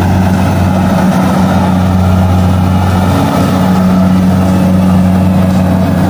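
Rice combine harvester's diesel engine running with a steady, even low hum over a rushing mechanical noise.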